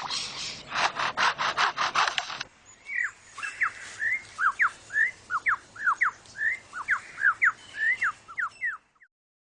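Superb lyrebird mimicking a chainsaw with harsh, rasping bursts for the first couple of seconds. It then moves into a run of short, sweeping whistled notes, about three a second, which stop shortly before the end.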